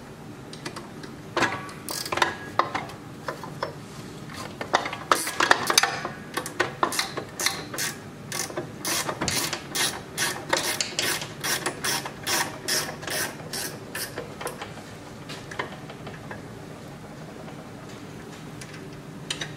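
Socket ratchet wrench clicking in runs as half-inch bolts are backed out of a snowblower's tracked drive frame. The clicking is densest in the middle and thins out in the last few seconds.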